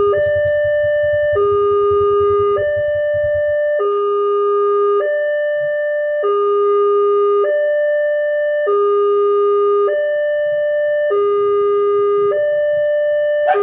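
Railway level-crossing alarm sounding a two-tone warning, a higher and a lower tone alternating, each held for just over a second, signalling that a train is approaching and the barriers are down. A low engine rumble from idling motorcycles sits underneath for the first few seconds and returns near the end.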